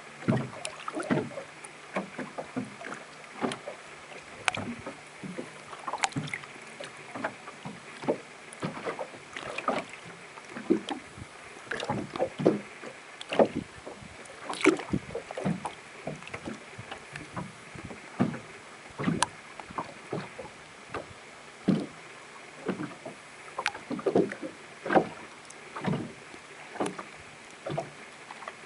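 Small waves lapping and slapping against a hull or structure at the water's edge: irregular short splashes, a few each second, over a steady faint wash of water.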